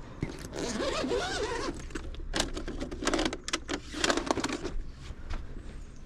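Delivery backpack being unzipped and opened by hand: fabric rustling at first, then a run of short clicks and scrapes as the bag is handled.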